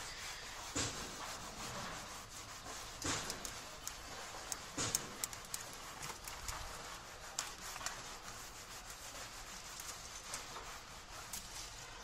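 Rustling and rubbing of loose electrical wires being handled and sorted, with scattered light clicks and taps, a few louder ones about 1, 3 and 5 seconds in.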